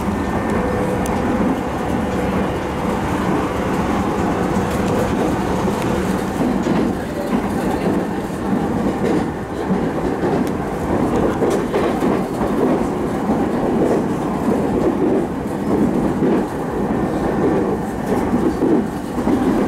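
Electric commuter train running, heard from inside the car: a steady rumble of wheels on rail with a faint whine near the start, and a rhythmic clacking over the rail joints that grows more pronounced in the second half.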